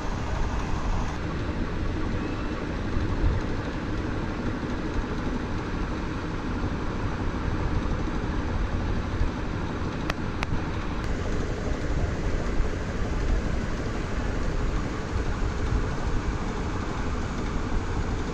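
Rohu fish frying in hot oil: a steady, dense sizzle and crackle over a low rumble.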